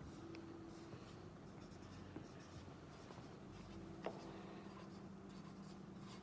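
Marker pen writing on a flip-chart paper pad: faint short strokes, with one small tap about four seconds in.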